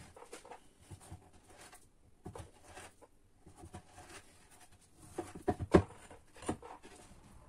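A kitchen knife slicing through a slab of Hungarian smoked bacon on a wooden cutting board: scattered taps and scrapes, with a cluster of sharper knocks about five and a half seconds in.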